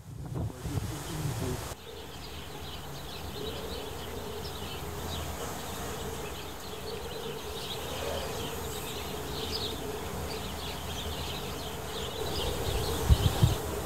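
Strong storm wind on the microphone: low gusty buffeting for the first couple of seconds, then a steady rushing with a faint hum and fluttering high hiss, and heavy buffets again near the end.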